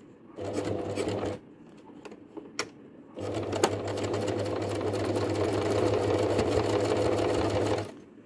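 Domestic sewing machine stitching a seam through fabric. A short run of about a second, a pause with a few light clicks, then a steady run of nearly five seconds that stops shortly before the end.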